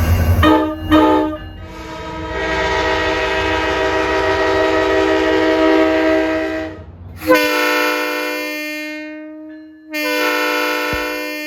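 Long Island Rail Road train's multi-note air horn sounding a chord. It gives two short blasts, then one long blast over the low rumble of the passing train, then two more blasts of about two seconds each.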